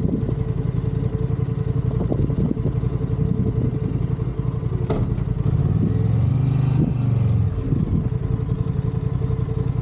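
Honda CB500X's parallel-twin engine idling steadily, with a sharp click about five seconds in. Between about six and seven and a half seconds a second motorcycle's engine grows louder and fades as it rides past.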